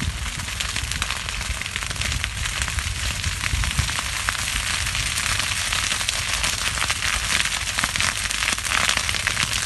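A burning sugarcane field crackling and popping in a dense, rapid patter as the flames run through the standing cane during a pre-harvest burn, with a low rumble underneath. The crackling grows stronger in the second half.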